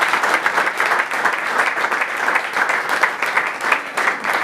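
A roomful of people applauding: dense, steady hand-clapping from a large group.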